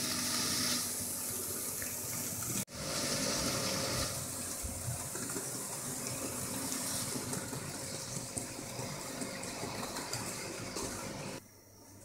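Hornby OO-gauge model locomotive running on the track: a steady rushing whirr of motor and wheels on rail, which drops away sharply near the end.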